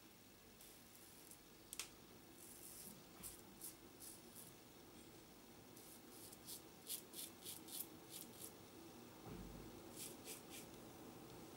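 Gillette Tech safety razor with a Gillette 7 o'clock black blade scraping through lathered stubble. Its short strokes come in quick runs of faint rasps.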